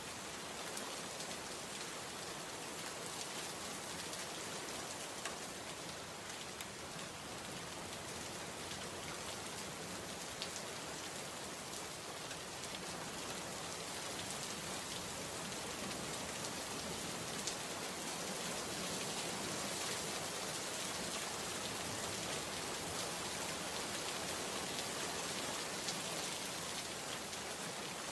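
Steady heavy rain falling, with a few individual drop taps standing out, growing a little louder in the second half.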